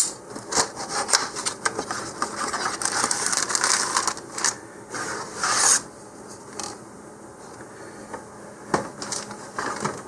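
A cardboard kit box being opened and its contents slid out and handled: cardboard rubbing and scraping, with scattered clicks. The rustling is busiest in the first six seconds, then goes quieter with a few clicks near the end.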